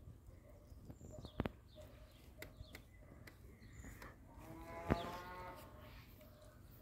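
A single drawn-out animal call, about a second long and falling slightly in pitch, comes about five seconds in. It is preceded by a few faint clicks.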